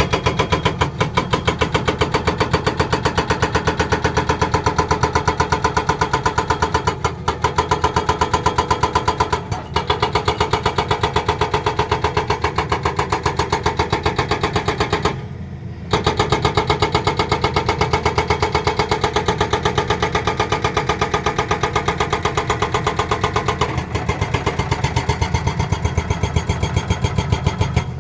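Excavator-mounted hydraulic breaker hammering in a rapid, even rhythm over the steady running of the Tata Hitachi excavator's diesel engine. The blows pause briefly twice, once about a third of the way in and for half a second about halfway through.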